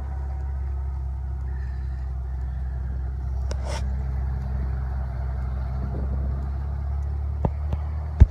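A steady low hum like an engine idling, with a few short knocks near the end.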